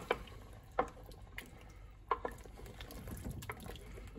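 Wooden spoon knocking and scraping against the pan while stirring vegetables in hot reduced red wine, with a few sharp knocks over a low, steady simmering hiss.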